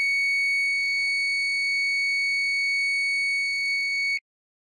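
5-volt buzzer of the gas alarm sounding one steady high-pitched tone, set off because the gas level has exceeded its threshold. It cuts off suddenly about four seconds in.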